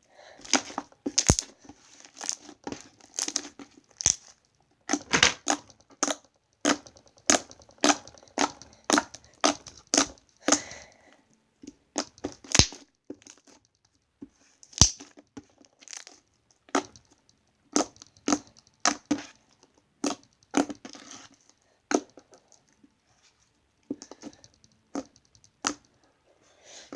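Thick, glossy slime being squished and pressed by hand, giving an irregular run of sharp clicks and pops, several a second, with a few short pauses.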